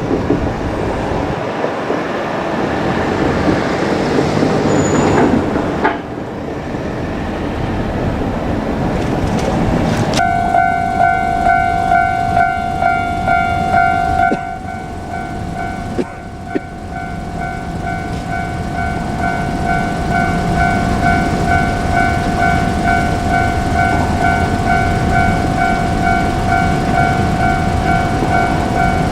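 An 817 series electric train runs over the rails for the first ten seconds. Then a Japanese level-crossing warning bell starts up, a repeating electronic ding that keeps ringing, with the rail noise going on underneath.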